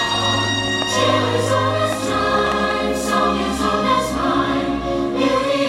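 Show music with a choir singing sustained notes over instrumental accompaniment.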